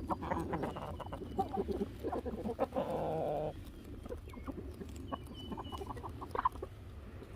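Chickens clucking in short, irregular calls, with a louder, harsher sound lasting about half a second around three seconds in.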